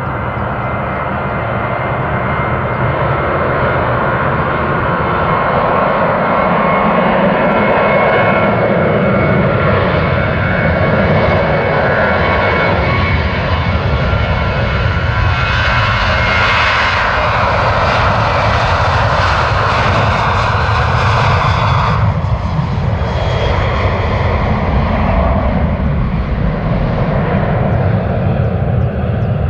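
Ryanair Boeing 737 jet engines at take-off power through the take-off roll and climb-out: a loud continuous rumble with a steady whine above it. The upper whine builds until about three-quarters of the way through, then drops off suddenly, leaving the lower rumble.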